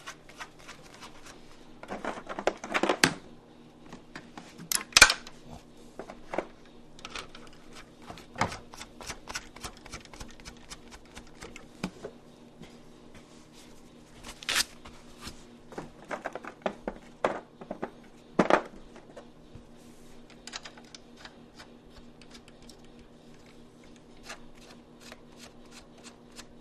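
Small metallic clicks, scrapes and knocks of hex flange nuts being handled and threaded by hand onto the upper strut mount studs, with several louder knocks spread through. A steady low hum runs underneath.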